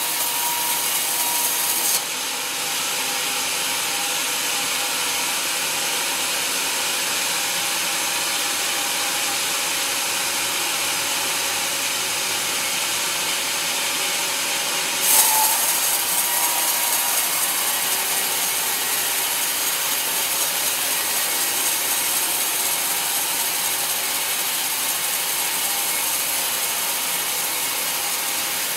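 Band-sawmill blade cutting lengthwise through a teak log, a steady high hissing saw noise. The sound shifts abruptly twice, about two seconds in and about halfway through.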